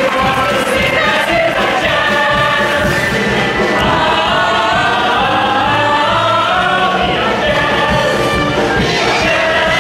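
Stage cast singing together as a chorus over instrumental accompaniment in a musical number.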